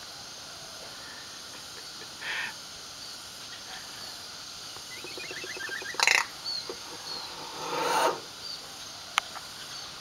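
Common hill myna giving non-speech calls between its talking: a short rasp, a quick run of clicking notes, then a loud harsh squawk about six seconds in and a longer rasping call swelling to a peak near eight seconds.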